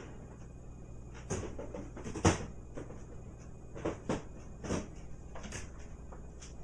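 Plastic flap of a pet door knocking against its frame as a kitten paws and pushes at it: a string of irregular clacks, the loudest a little over two seconds in.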